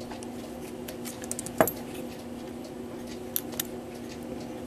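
A few light clicks and taps of pliers and small metal clock parts being handled during disassembly of a cable barrel, the sharpest click about one and a half seconds in, over a steady low hum.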